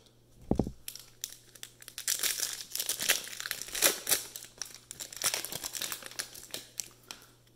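Crinkly wrapper of a 2020 Mosaic football cello pack crackling and tearing as it is pulled open by hand, after a low thump about half a second in.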